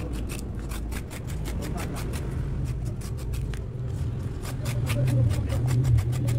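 Small kitchen knife quickly shaving thin slivers off a green vegetable on a banana leaf: a fast run of light cutting clicks, several a second. A low hum underneath grows louder in the second half.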